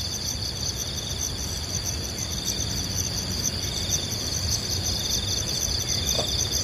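Insects trilling steadily in several high, finely pulsing tones, over a low steady rumble.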